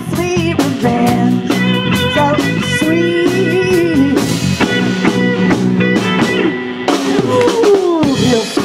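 Live blues band playing without vocals: electric guitars over bass and drum kit, with notes sliding in pitch near the end.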